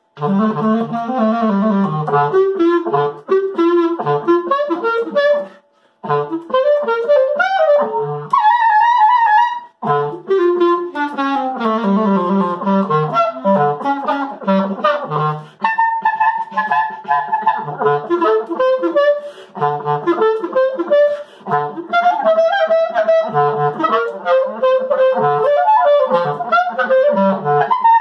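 Solo clarinet playing a melody of quick, moving notes, broken by two short gaps about six and ten seconds in.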